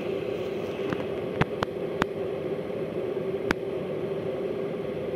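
Electric kettle heating water toward the boil: a steady hum and hiss with a handful of sharp ticks.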